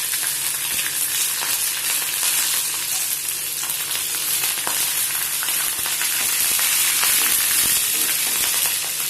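Green chillies and curry leaves frying in hot oil with mustard seeds and dals: a steady sizzle with scattered sharp pops and crackles.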